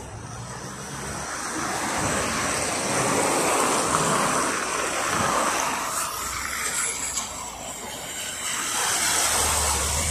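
Traffic passing on a wet road, the hiss of tyres through water and slush swelling and fading. Near the end a LiAZ 5292.67 city bus with a compressed-natural-gas YaMZ-53624 engine pulls up to the stop, adding a low engine hum.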